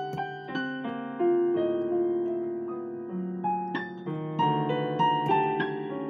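Digital piano played in a slow passage of chords and single notes, each struck and left to ring and fade.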